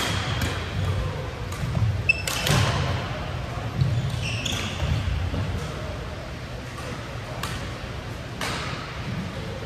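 Badminton doubles rally: sharp racket strikes on the shuttlecock at irregular intervals of about a second, with brief high squeaks of shoes on the court floor and a low murmur of voices underneath.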